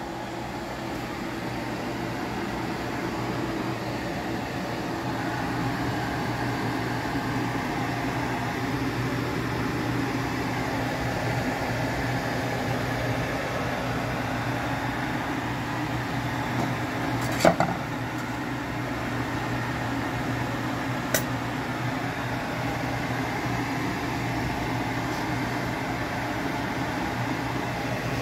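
Steady hiss of a saucepan of milky liquid heating to the boil on an electric stove, growing a little louder over the first several seconds, over a low steady hum. Two sharp clicks sound about two thirds of the way through, the first the louder.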